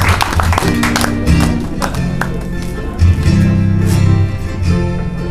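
Live band of ukuleles and acoustic guitar strumming chords over low bass notes that change every half second or so, the instrumental introduction to a Hawaiian hula song.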